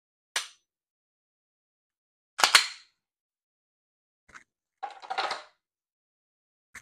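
Sharp metallic clicks and clacks of an empty pistol being handled during dry-fire practice. There is a single click about half a second in, a louder doubled clack about two and a half seconds in, and a short run of clacks around five seconds.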